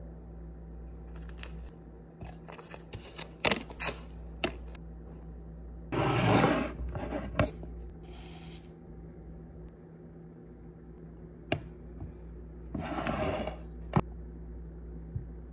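Tea being made by hand at a counter: a green tea packet crinkles and tears open with scattered rustles and clicks. Then come two short rushes of sugar being spooned into a ceramic mug and a few sharp clinks of a spoon against the mug and a glass sugar jar, over a steady low hum.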